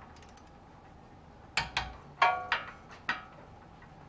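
Ratchet and socket on the knuckle bolts, making a few sharp metal-on-metal clicks and clinks about one and a half to three seconds in, one of them ringing briefly, as the bolts are checked for tightness.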